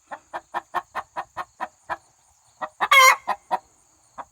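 Broody chicken hen sitting on her eggs, clucking in quick, even pulses of about five a second, with a pause and a loud squawk about three seconds in.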